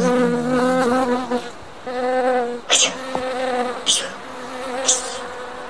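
Buzzing of a bee, a steady wavering drone that dips in level a few times, added as a sound effect. Three short hissing swishes come in the second half.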